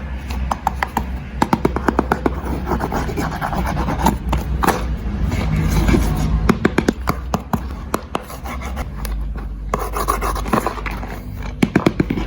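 Glass marbles rolling and clattering through a plastic building-block marble run: a rolling rumble broken by many quick clicks as the marbles hit the track pieces.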